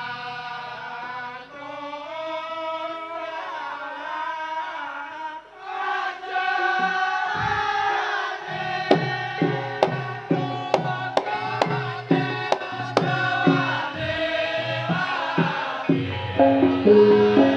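Live music: sustained sung or chanted melody lines, then a drum struck about twice a second from about nine seconds in, with pitched percussion notes entering near the end.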